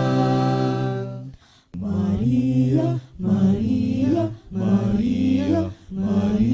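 Background music of low chanting voices: one long held note that stops a little over a second in, then after a short pause a run of short sung phrases, about a second each, each rising in pitch at its end.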